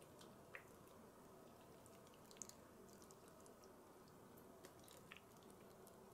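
Near silence: a faint trickle of egg-and-milk mixture poured from a glass jug onto cinnamon roll pieces in a slow cooker crock, with a few soft ticks.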